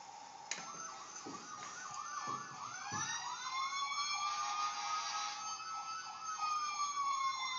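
Electronic siren sound from a Kid Trax ride-on toy fire truck, starting with a click about half a second in: a fast repeating warble layered with a slower wail that rises, holds, and falls away near the end.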